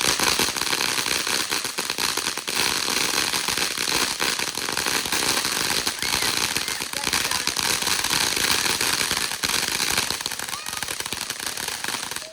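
Consumer firework going off with dense, continuous crackling and hiss, easing a little near the end.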